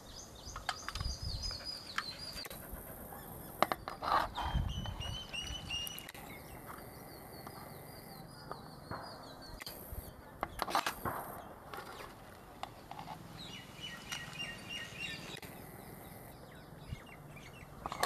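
Small birds chirping in repeated runs of quick high notes, with a few sharp clinks of a metal ladle against steel plates about four and eleven seconds in.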